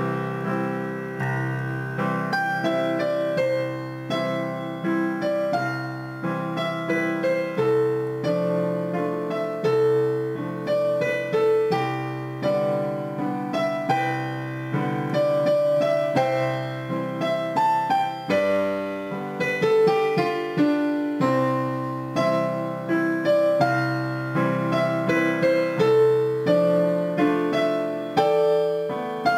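Background piano music: a melody of single struck notes and chords, each fading after it is played.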